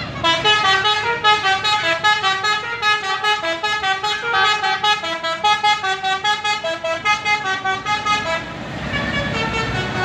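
Telolet Basuri multi-tone air horn on a tour bus playing a quick tune of stepped notes for about eight seconds. A low rumble follows near the end as the bus drives past.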